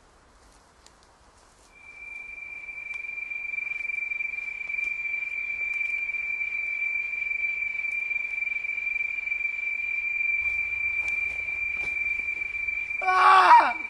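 A single steady high-pitched tone, a horror-film sound effect, comes in about two seconds in and holds unchanged. Near the end, a short loud cry falling in pitch sounds over it.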